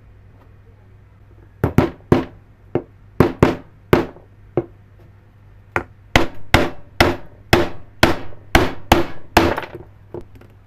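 A hammer striking repeatedly: about seventeen sharp blows starting a couple of seconds in, irregular at first, then settling to about two a second before stopping near the end.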